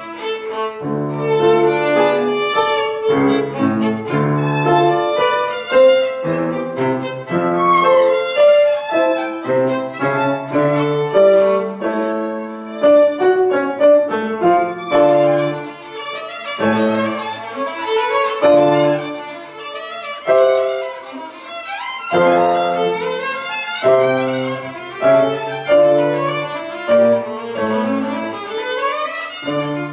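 Violin and grand piano playing classical music together: a quick succession of bowed violin notes over piano accompaniment.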